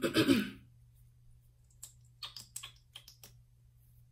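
A short, loud sound in the first half-second, then a scatter of small, sharp clicks from about two seconds in.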